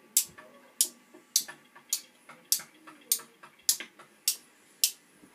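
Sharp, high ticks repeating at an even pace, a little under two a second, like a beat being kept, over a faint low murmur.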